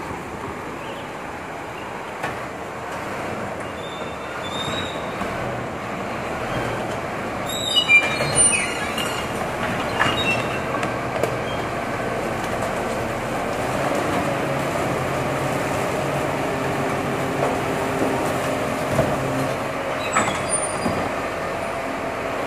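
A Scania P310 rear-loader refuse truck runs its hydraulic bin lifter to raise and tip a wheeled bin, with the truck's engine running steadily underneath. About eight seconds in there are high metallic squeals and clattering bangs as the bin tips, and a shorter squeal comes near the end.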